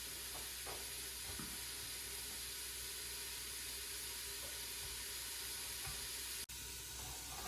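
Crumbled hot Italian sausage meat sizzling steadily as it browns in a pot over low heat, with a brief break about two-thirds of the way through.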